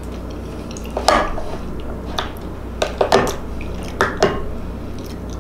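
Close-up eating sounds: a handful of short wet smacks and clicks while chewing, and a wooden spoon knocking and scraping in a small ceramic dish about four seconds in.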